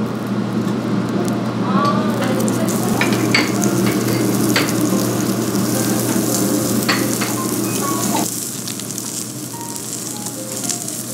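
Thick slabs of pork sizzling on a hot barbecue grill plate, with a few sharp metallic clicks as kitchen scissors cut the meat. The sizzle turns quieter about eight seconds in.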